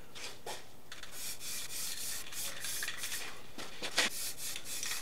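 Aerosol spray paint can hissing as paint is sprayed onto freshly welded steel, starting about a second in and running on steadily.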